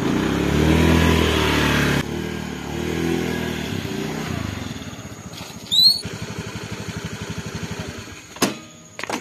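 Small automatic motor scooter engine revving as it pulls away, rising in pitch twice, then running steadily at low speed. A short high rising chirp sounds about halfway through.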